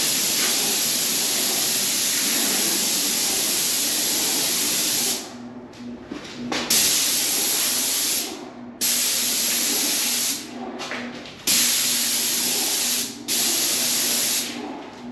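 Airless paint spray gun of a Graco 695 sprayer hissing as paint is sprayed, in five bursts as the trigger is pulled and released: one long spray of about five seconds, then four shorter ones of one to two seconds with brief pauses between.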